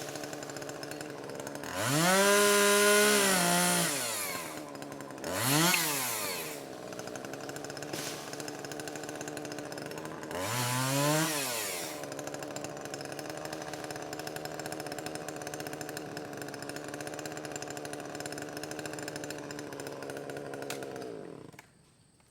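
Chainsaw idling with a steady hum, revved up three times as it cuts small trees, the pitch rising, holding and falling back each time. It is shut off near the end.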